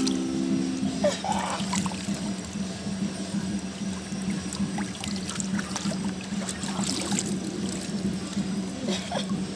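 Water trickling and splashing in small irregular spurts, over a steady low hum.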